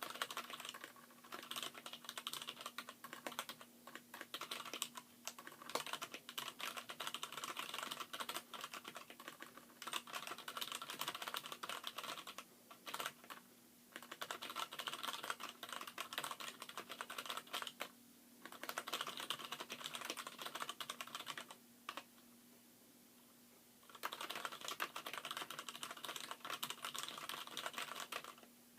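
Fast typing on a Poker X mechanical keyboard whose letter keys are hybrid switches, Gateron Brown stems and springs in Cherry MX Black housings, the other keys stock Cherry MX Blacks. A rapid run of key clacks that breaks off briefly a few times, once for about two seconds past the middle.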